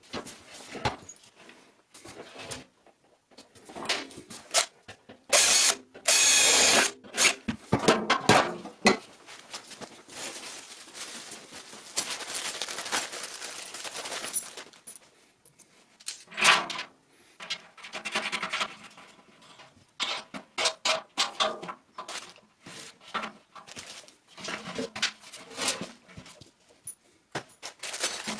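Hands-on workshop handling: a thin plastic hardware bag crinkling as it is opened and rummaged, with small metal fittings clicking and knocks and scrapes from a metal trash can and its lid. A couple of louder bursts come about five to seven seconds in, and from the middle onward the sound breaks into many quick ticks and rustles.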